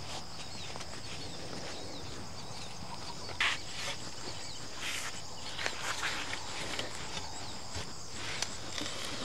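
Outdoor field ambience with a steady high background and scattered light knocks and rustles, like someone working and moving about on foot.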